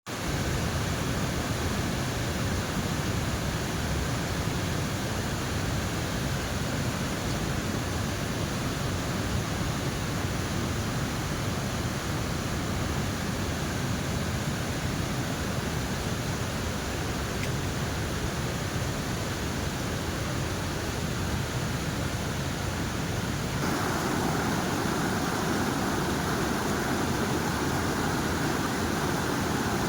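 Waterfall rushing as a steady, even roar of falling water. About three-quarters of the way through it abruptly grows louder and fuller.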